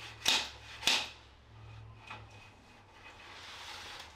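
Two sharp plastic-and-metal clacks about half a second apart from a telescoping tension shower curtain rod being handled and twisted, its twist-lock not tightening. Then a few faint clicks and rubbing.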